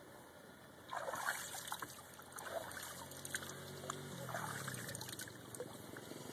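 A hand splashing and swishing water at the edge of an above-ground pool, starting about a second in, with smaller splashes after.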